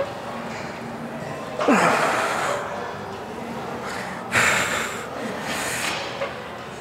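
A man's hard, forceful breaths of exertion during a set of single-leg leg presses taken toward failure: one long, loud breath about two seconds in, then two shorter ones a little after four and again toward six seconds in.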